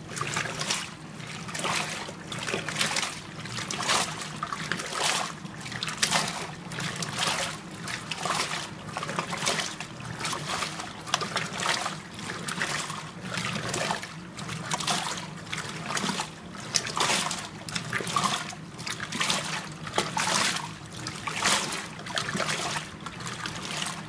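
Danby DWM17WDB portable top-load washer agitating a wash load: water and clothes slosh and splash in rhythmic surges about once a second as the agitator churns them hard, over a steady low hum.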